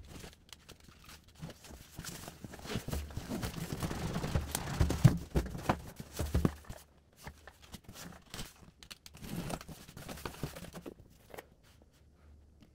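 A cardboard box being slit open with a utility knife and handled on the floor: scraping and tearing of tape and cardboard, with a few sharp knocks about five to six seconds in as the box is tipped over. The sounds then turn to quieter rustling of the flaps and foam packing.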